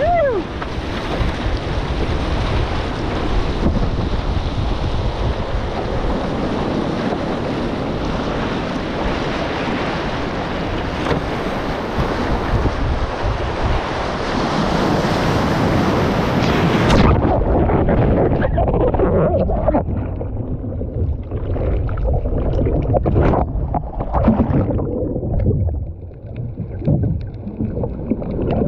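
Wind buffeting the microphone and water rushing and spraying along an outrigger canoe as it surfs a wave. About seventeen seconds in, the sound suddenly goes muffled as the camera is plunged underwater in a wipeout, leaving dull churning and gurgling water.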